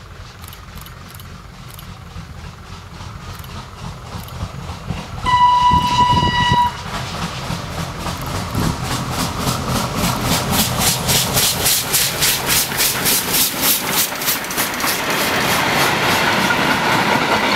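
Steam locomotive approaching at speed: one steady blast of its steam whistle, about a second and a half long, about five seconds in, then its exhaust chuffing in a fast, even beat that grows louder as it comes close. Near the end the carriages' wheels clatter past on the rails.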